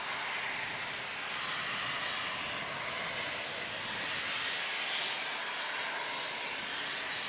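Steam locomotive 18 201 venting steam: a loud, steady hiss with slow swells and no distinct exhaust beats.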